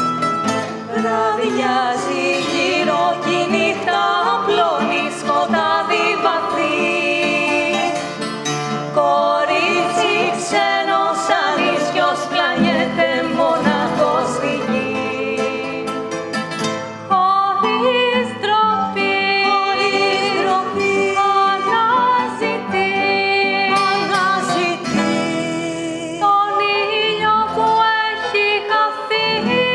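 A woman singing a Greek popular song to acoustic accompaniment of plucked strings and violin. The music changes abruptly about 17 seconds in and again near 25 seconds.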